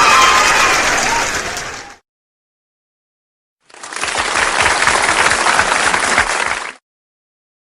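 Stock applause sound effects: a burst of crowd clapping with some cheering that fades out about two seconds in, then after a gap of silence a second burst of clapping that starts about a second and a half later and cuts off abruptly near the end.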